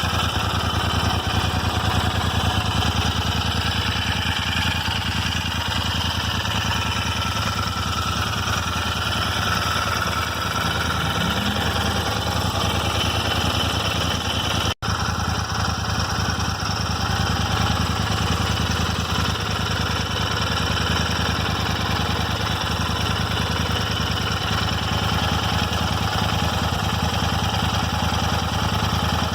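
Royal Enfield Interceptor 650's parallel-twin engine idling steadily, with the random ticking noise in the engine that is being shown. The sound breaks off for a moment about halfway.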